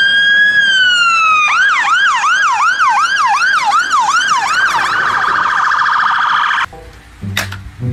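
Fire engine siren: a slow wail sliding down in pitch, then switching to quick up-and-down yelp sweeps, about three a second, then to a rapid warble. It cuts off suddenly a little before the end.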